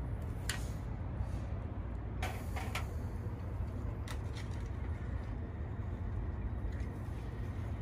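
Steady low outdoor rumble, with a few light clicks as metal tongs pick up scallop shells and set them down on a wire grill.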